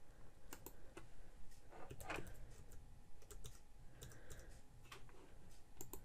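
Faint computer keyboard typing: scattered, irregular keystroke clicks.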